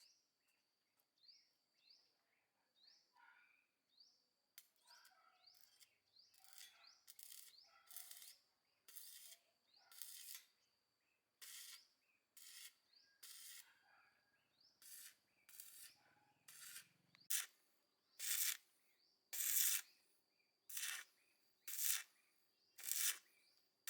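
Repeated rasping strokes of a hand tool scraping a surface, about one a second, starting a few seconds in and growing louder toward the end. A faint high chirping repeats in the background.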